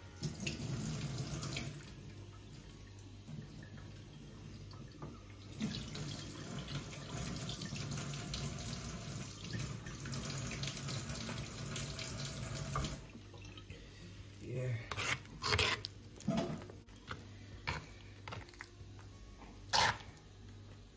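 Wooden spoon stirring and mixing a thick, mashed eggplant stew in a bowl, a steady wet squelching scrape. A few sharp knocks come in the last seconds.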